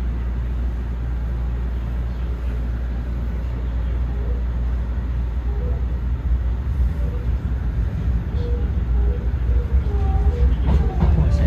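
Hankyu Kobe Line electric train running, heard from inside its front car: a steady low rumble that grows slowly louder as it gathers speed, with sharp wheel clacks over rail joints and points starting near the end.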